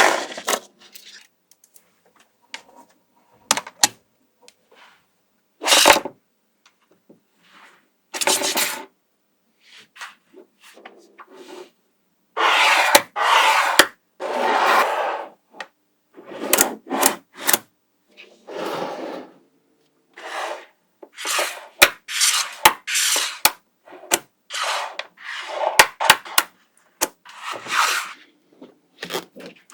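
Small magnetic balls being handled: sharp clicks as they snap together, and short bursts of rattling and rubbing as strands of balls are shaped and slid against each other. The sounds come in separate bursts with silent gaps between them.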